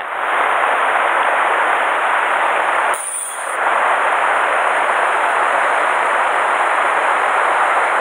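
Fast, shallow river water running over stones, a steady rushing hiss that drops briefly about three seconds in.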